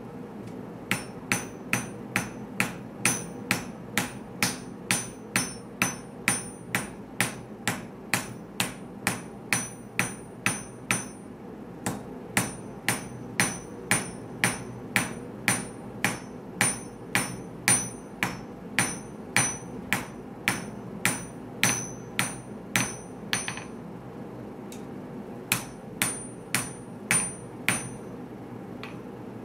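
Hand hammer striking a red-hot 1084/15N20 Damascus blade on an anvil in a steady rhythm of about two blows a second, each blow with a bright metallic ring. The blows pause for about two seconds near the end, then a few more follow. A steady rushing noise, likely the gas forge, runs underneath.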